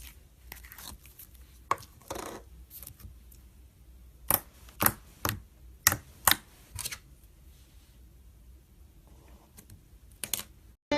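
Slime being handled, with a run of sharp clicks and pops: a longer squelchy smear about two seconds in, then about six quick snaps in a row between four and seven seconds in.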